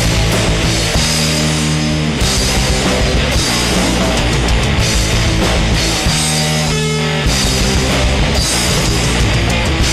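A punk rock band of electric guitar, bass and drums playing an instrumental passage with no vocals, with a brief break in the low end about seven seconds in.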